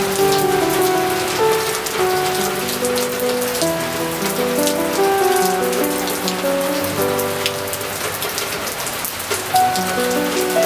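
Steady rain falling, with many small drops ticking close by, under piano music.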